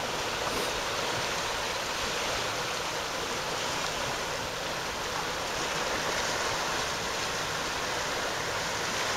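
Fast tidal current rushing steadily through a narrow rocky passage on a flood tide, the churning water making an even hiss.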